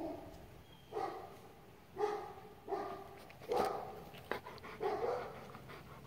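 A dog barking in single barks, about once a second, six or so in all.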